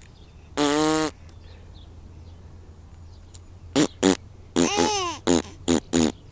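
A mouth-made fart noise, a lip-buzzing raspberry, blown once about half a second in. From about four seconds in, a baby laughs in a run of about six short bursts.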